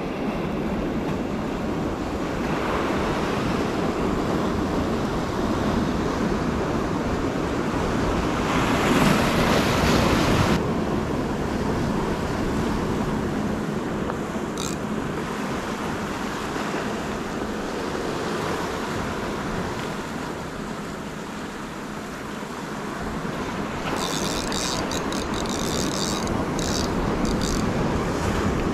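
Ocean surf washing against a rocky shore, a steady rush with a louder surge about nine to ten seconds in.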